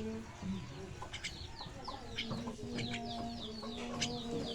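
Birds calling: repeated short, high chirps that fall in pitch, over a long, steady lower call in the second half.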